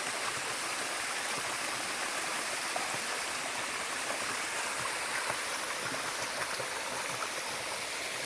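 Water of a small mountain waterfall and stream running over bedrock, a steady rushing.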